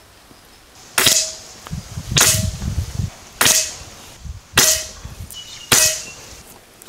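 Five shots from a Gare Falcon regulated PCP air rifle firing slugs: five sharp cracks, each with a short ring after it, about a second apart.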